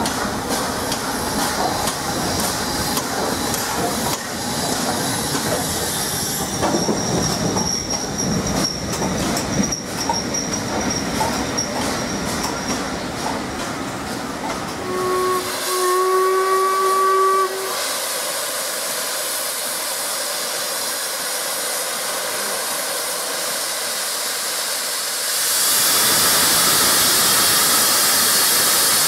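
LMS Royal Scot class 4-6-0 steam locomotive 46100 running in with its coaches: wheel clatter and a steady high squeal as the train slows. About halfway through come two blasts on the steam whistle, a short one then a longer one. After that comes steady steam hissing, which grows louder near the end as steam blows from the cylinder drain cocks.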